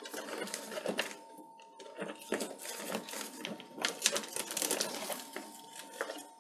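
Chunks of orchid bark clicking and rustling as fingers press them into the gaps of a plastic pot around a plant's root ball, in an irregular string of small clicks.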